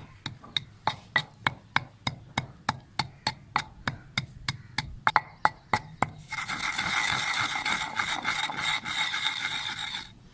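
Lumps of rock salt being pounded by hand, sharp knocks about four a second, then from about six seconds in a steady grinding noise as the salt is crushed fine, stopping just before the end.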